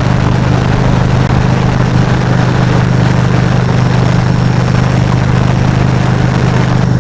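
Motorcycle engine running steadily at highway speed, a constant low hum under heavy wind rush.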